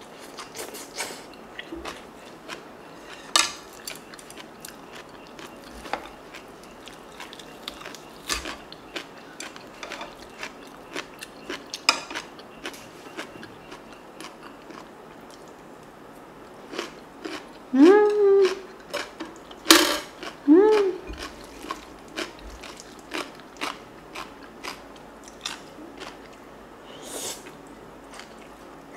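Close-miked eating: chewing of bean-sprout rice and crunching of stuffed cucumber kimchi, with many small mouth clicks and crunches. About 18 and 20 seconds in come two short rising "mm" hums, the loudest sounds.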